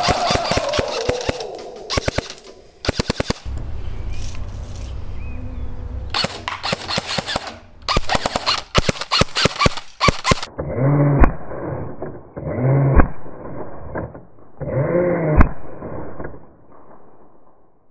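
Airsoft rifle firing several full-auto bursts of rapid sharp cracks, roughly ten shots a second, over the first ten seconds. Toward the end come three shorter, muffled sounds, each with one sharp snap.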